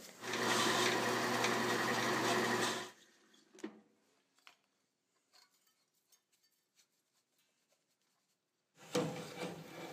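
Drill press motor running steadily for about two and a half seconds, then cutting off suddenly, followed by a faint click.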